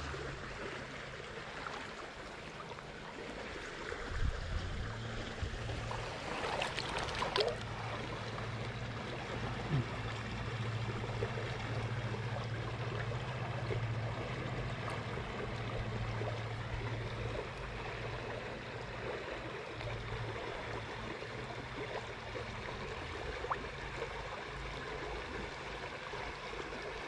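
Shallow stream water flowing and trickling steadily around a wading angler, with a few brief splashes about four to seven seconds in.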